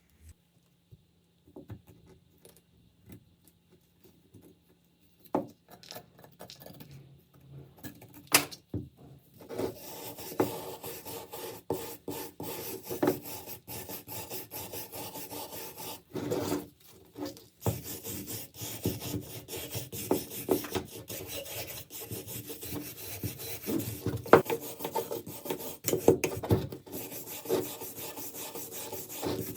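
A few light taps and clicks of handling, then from about ten seconds in, continuous quick rasping strokes of a hand tool scraping the old pistol's rusty metal.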